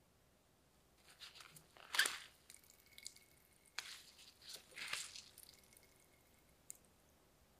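Shredded cabbage squeezed hard by hand, a wet squishing crunch with water dripping and splashing onto a ceramic plate, in several short spells, the loudest about two seconds in. A small sharp tick near the end.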